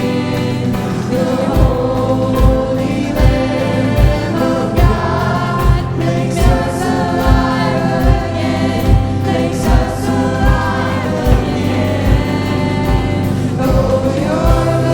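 Church worship band and singers performing a contemporary worship song, with a steady kick-drum beat coming in about a second and a half in.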